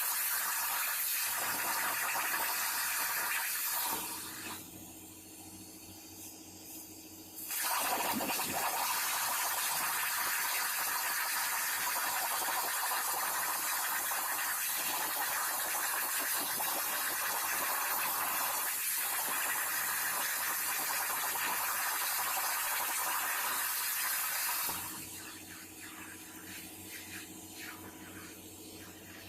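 CNC plasma cutting torch arc cutting with a loud, steady hiss. The arc stops about four seconds in, restarts after about three and a half seconds, and cuts off near the end, leaving a quieter steady machine hum in the gaps.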